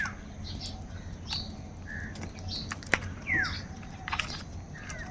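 Crows calling in short separate calls, mixed with chirps; several calls fall in pitch, and a sharp click sounds about three seconds in.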